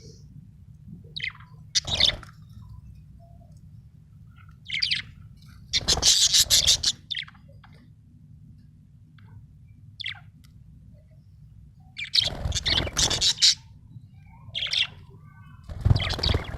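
Budgerigar chirping in irregular bursts every few seconds, the longest and loudest about six and twelve seconds in, over a steady low hum.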